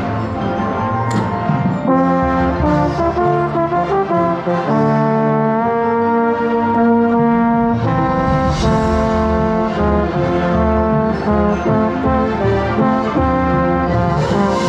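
Marching band brass playing held chords that change every second or so, with a trombone right at the microphone as the loudest voice. A long chord is held from about five to eight seconds in, and there are a few sharp percussion hits.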